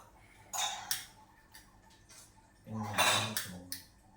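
Hard objects being handled: a short clatter about half a second in, then a longer, louder rattle near three seconds.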